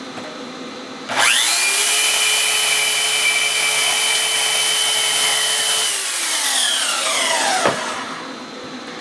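Electric power cutting tool spinning up, cutting 1/8 in aluminium flat stock for about five seconds, then winding down and stopping near the end.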